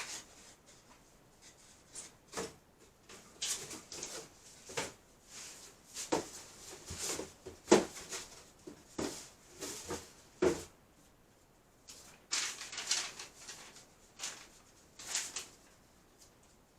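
Irregular handling noises: scattered short knocks, clatters and rustles of objects being moved and set down, with gaps of a second or so between them.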